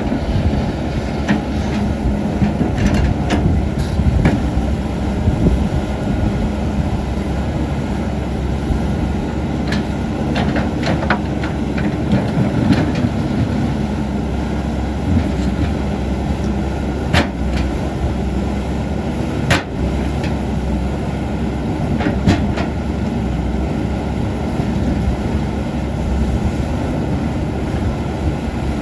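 CAT 320D excavator's diesel engine running steadily under work, with scattered sharp metallic clanks and knocks from the machine and stones being moved, a few louder single knocks in the second half.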